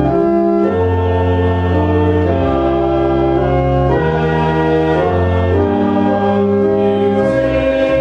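Church organ playing slow, sustained chords over a strong bass, the chords changing about every second or so.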